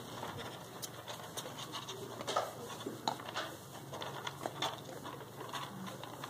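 Alpaca nibbling and snuffling at a kitten's fur: soft, irregular rustles and small clicks, over a faint steady low hum.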